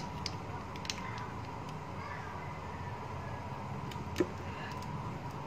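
Small clicks and taps from hands handling and lifting smartphone parts, with one sharper tap about four seconds in, over a steady background hum.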